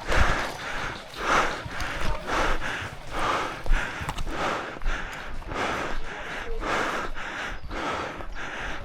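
A person breathing hard, with quick, rough breaths in and out about one and a half times a second: winded from exertion.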